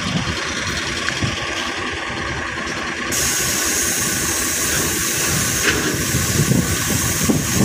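Heavy diesel truck engine idling steadily, with a hiss that comes in suddenly about three seconds in and continues.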